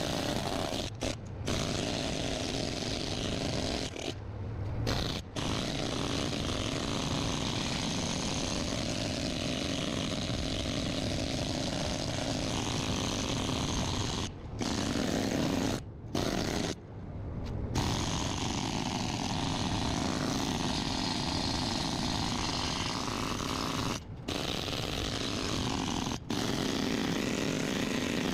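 Pneumatic needle scaler running against steel, chipping rust and old weld off a trailer frame, in long steady stretches with several short breaks where it stops and restarts.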